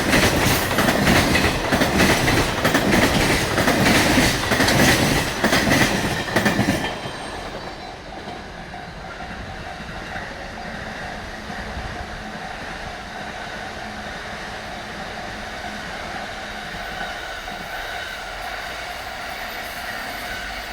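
Container freight wagons of a high-speed freight train clattering over the rail joints with rapid heavy knocks. About seven seconds in, the last wagon passes and the clatter cuts off. A quieter steady ringing tone carries on, the level-crossing warning signal.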